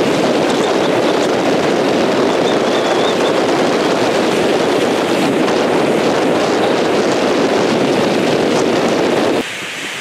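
Heavy wind buffeting the microphone over lake surf washing up onto the beach, a steady loud rushing. It drops off sharply near the end.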